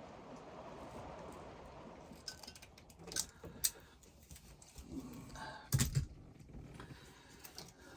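Scattered clicks, taps and light rattling of small parts and wires being handled, with one louder knock near six seconds; a steady low hiss underneath for the first couple of seconds.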